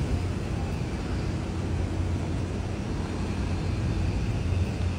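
Steady low rumble of outdoor city background noise, with a faint constant hum.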